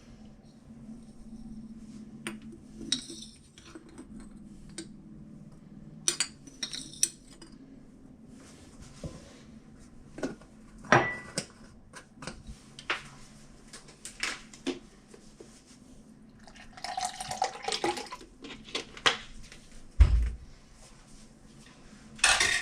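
Dishes and cutlery clinking and knocking in a kitchen: many separate sharp clicks and clatters, a short noisy stretch of handling, and a dull thump near the end.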